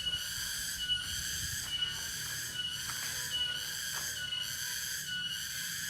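Cicada (tonggeret) singing: a steady, high buzzing drone with a regular pulse about every two-thirds of a second.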